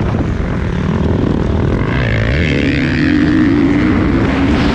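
Motocross bike engine racing under load, close to the onboard camera. The pitch wavers and dips, then climbs and holds higher from about three seconds in as the rider gets on the throttle.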